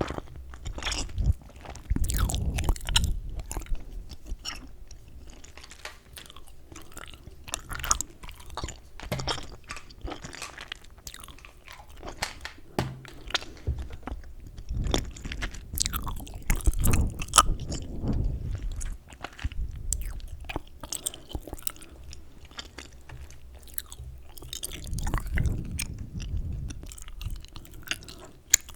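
Chewing gum close to the microphone: irregular wet smacks and sharp clicks of the mouth and gum, with soft low thumps of the jaw.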